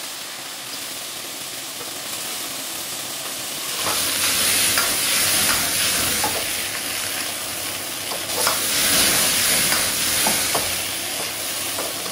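Crayfish frying in hot soybean oil, sizzling steadily. About four seconds in, the sizzle grows louder and a spatula scrapes and knocks against the pan as they are stirred.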